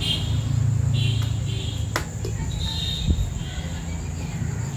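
Metal parts of a breaker hammer being handled and fitted together, with one sharp click about two seconds in and a dull knock a second later, over a steady low hum and intermittent high chirping.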